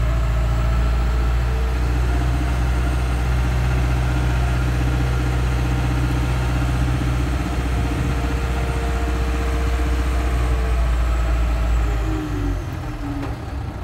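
Diesel engine of a Terex AC100 mobile crane running steadily while the upper works slew round, heard from inside the operator's cab as a low drone with a faint higher tone. Near the end the drone eases off and the tone drops in pitch.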